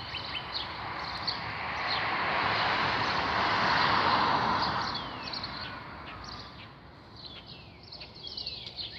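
A vehicle passing by, its noise swelling to loudest about four seconds in and fading away by about six seconds, while small birds chirp in quick repeated notes.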